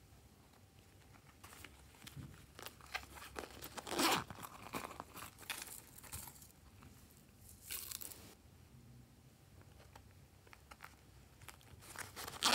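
Small vinyl coin purses handled close to the microphone, crinkling and rustling with small clicks, and a zipper being pulled. The louder rustles come about four seconds in and again around eight seconds.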